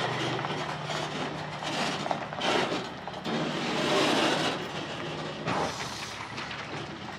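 Delivery truck's engine running, a steady low hum under a rushing noise that swells twice.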